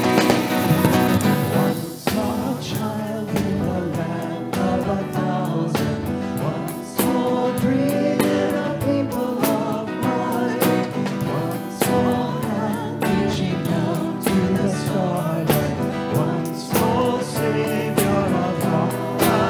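Worship song sung with guitar accompaniment.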